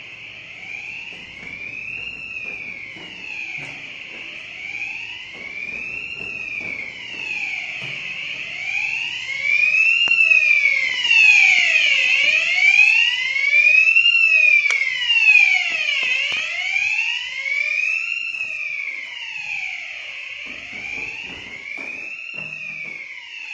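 Electronic fire alarm hooter of a fire alarm system sounding continuously with a slow rising-and-falling wail, about one sweep every two seconds. It grows louder toward the middle and fades near the end. The system is in alarm during a test.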